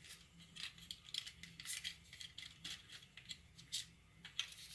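Faint, scattered clicks and rustles of a small foam-and-plastic RC airplane fuselage being handled and turned over in the hands.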